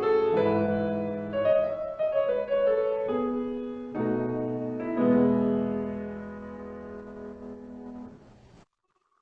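Slow piano music: a series of held chords, the last one struck about five seconds in and dying away until the recording cuts off suddenly about eight and a half seconds in.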